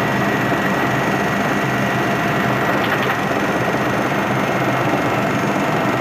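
Military helicopter's engines and rotor running, heard from inside the cockpit: a dense, steady drone with a steady high whine over it.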